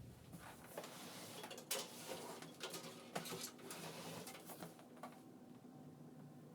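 Faint handling sounds: soft rustling and a few light clicks, unevenly spaced, with the strongest about two, three and four and a half seconds in.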